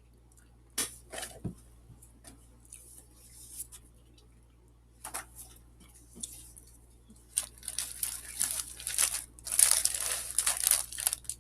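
Plastic snack bag of mini Cheetos being handled and torn open: a few scattered crackles at first, then a burst of loud crinkling and tearing of the plastic in the last few seconds.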